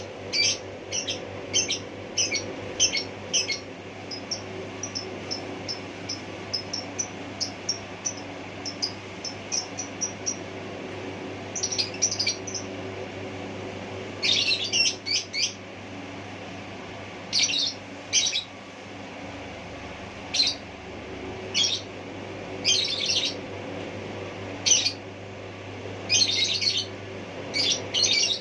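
A bird chirping in short, sharp calls: a quick run of about two a second at first, then scattered clusters of chirps, over a steady low hum.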